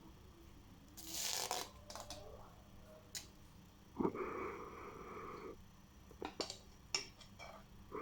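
Food-preparation handling sounds: a brief rustle about a second in, scattered clicks and knocks, and a steady scraping or rubbing sound lasting about a second and a half from halfway through.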